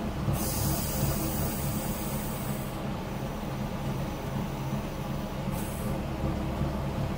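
The car ferry's MWM diesel engine running steadily, a low hum heard inside the wheelhouse. A high hiss comes in for about two and a half seconds near the start, and again briefly near the end.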